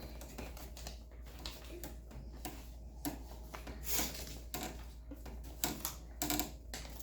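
A plastic wire nut being twisted onto the bare ground wires by hand, making irregular small clicks and scrapes, a few louder ones about four seconds in and again near the end.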